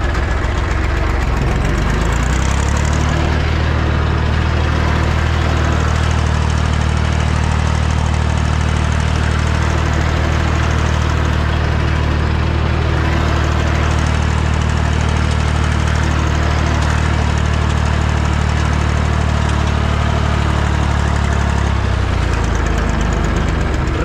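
Ursus C-360 3P tractor's four-cylinder diesel engine running, heard from inside the cab while the mounted boom sprayer works. About two seconds in it picks up to a steady working speed, and it drops back a couple of seconds before the end.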